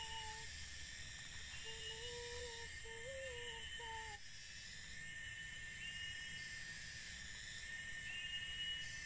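Rainforest ambience: a steady high insect chorus, with a short rising call repeating every couple of seconds. A low wavering tone is heard in the first half and stops where the sound changes abruptly about four seconds in.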